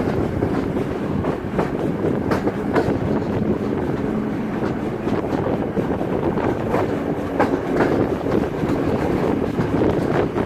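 A steam-hauled passenger train rolling along the track, heard from an open coach window: irregular clicks of the wheels over the rails over a steady rush of running noise and wind on the microphone.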